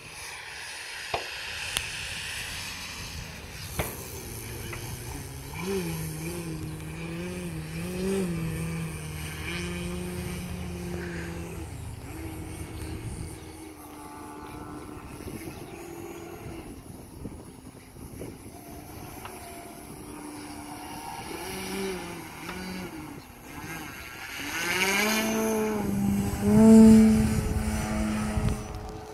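Electric motor and 22x10 propeller of a large radio-controlled Extreme Flight Extra 300, an XPWR motor on a 12-cell battery, buzzing with its pitch rising and falling many times as the throttle is worked up and down. Near the end it surges to its loudest as the throttle is pushed up.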